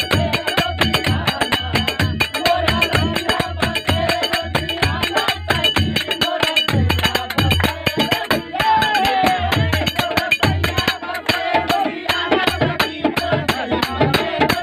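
Bhojpuri Phagua (Holi folk) ensemble playing an instrumental passage: large brass jhal hand cymbals clash in a fast, driving rhythm over dholak drumming and sustained harmonium.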